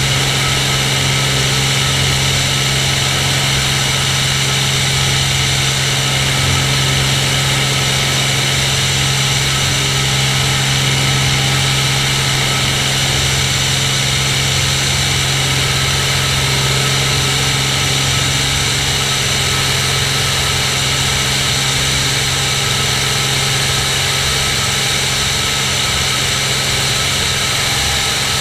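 Cirrus SR22's six-cylinder piston engine and propeller running steadily in flight, picked up by a camera mounted outside the aircraft. It holds a constant, even drone throughout.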